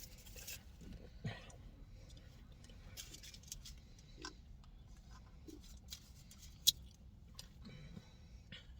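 Soft mouth and handling sounds as a milkshake is drunk through a straw: faint scattered clicks, with one sharp click about two-thirds of the way in.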